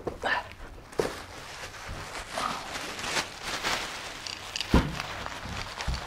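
Dry ice being crushed inside black plastic bags: the plastic crinkling and rustling as the bags are handled and pressed, with a few dull thumps.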